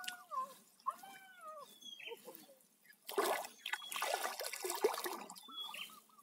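Water splashing and sloshing in the shallows as a hooked tilapia is landed by hand, loudest from about three to five and a half seconds in. A few short rising-and-falling calls sound in the first two seconds.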